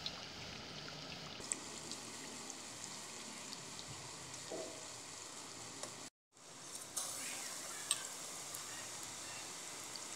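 Gram-flour-battered bondas deep-frying in hot oil: a steady sizzle with scattered small crackles and pops. The sound drops out for a moment about six seconds in.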